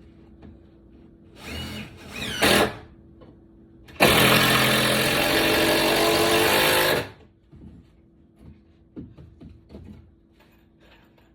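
Handheld power tool: two short bursts that rise and fall in pitch, then a loud steady run of about three seconds that stops abruptly, followed by a few light knocks.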